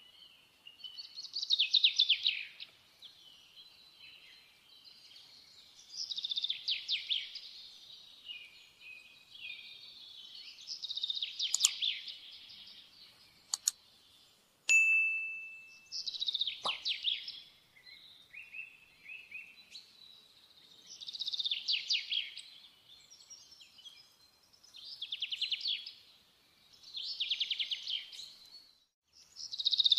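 A small songbird singing short, fast trilled phrases, one every two to three seconds. About halfway through, a couple of clicks and a short bell-like ding.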